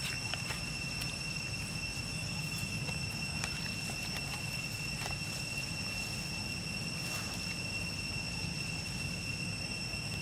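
Steady outdoor ambience: a constant high-pitched whine or drone holds throughout over a low rumble, with a few faint clicks and rustles of dry leaves as the monkeys shift about.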